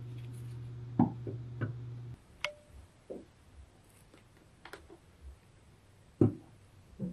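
A few sharp clicks and knocks as a Canon EF 50mm f/1.4 lens and camera body are handled and the lens is twisted off its EF-EOS R mount adapter. The loudest knocks come about a second in and near the end. A steady low hum runs for the first two seconds and cuts off suddenly.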